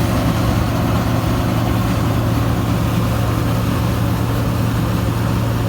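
An engine running steadily, a low even hum with no change in pitch or level.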